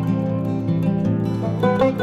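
Background music: acoustic guitar playing plucked notes.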